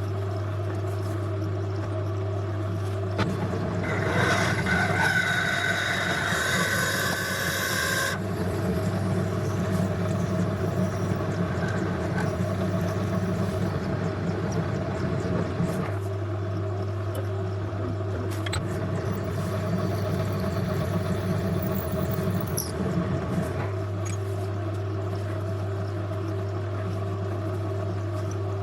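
Myford Super 7 lathe running steadily with a cutting tool working the metal workpiece in two spells: the first starts about three seconds in, with a high-pitched squeal from the cut for its first few seconds; the second comes near the end.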